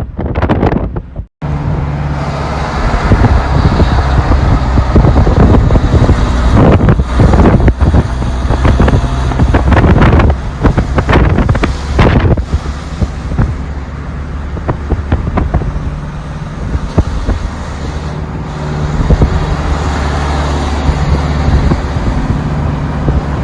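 Steady low drone of a vehicle engine under heavy wind buffeting on the microphone, with irregular gusts.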